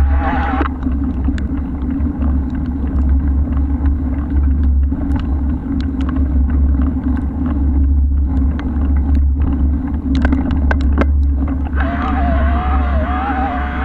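Steady low rumble of wind buffeting the microphone of a moving bike, with scattered light clicks and ticks. A wavering higher-pitched whine is present in the first moment and returns near the end.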